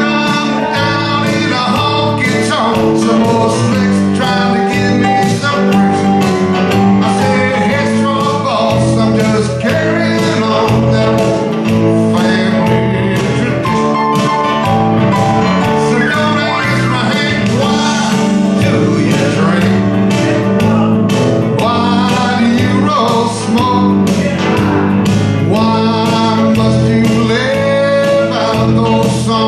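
A man singing a country song live into a microphone, accompanying himself with steady guitar strumming.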